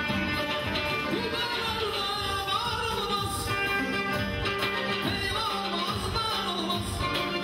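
Live Azerbaijani wedding music: a singer's ornamented, wavering vocal line over band accompaniment with a steady beat.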